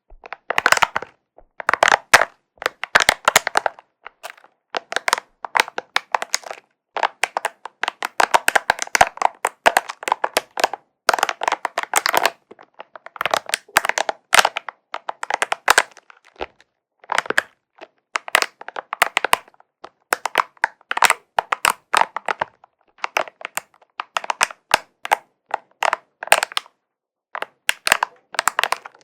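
Spiky ball being handled: repeated bursts of dense, sharp crackling clicks, each burst lasting up to about a second, one after another with short pauses.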